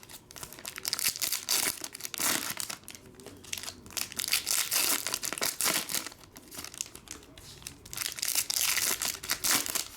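Foil trading-card pack wrappers crinkling and tearing as packs are opened and handled, in irregular bursts.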